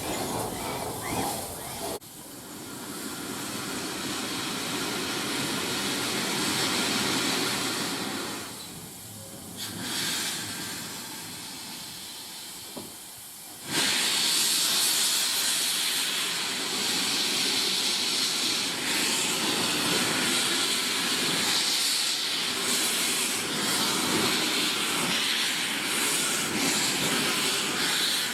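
Steam locomotive letting off steam: a steady hiss, quieter through the first half, then loud and sudden from about halfway through.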